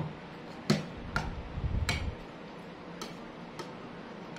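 Metal spoon clinking against a ceramic bowl while stirring porridge: about six light, irregularly spaced clinks, most of them in the first two seconds.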